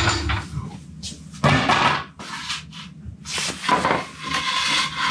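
About five short scrapes and knocks, spaced unevenly: things being shifted about and set down on a concrete garage floor.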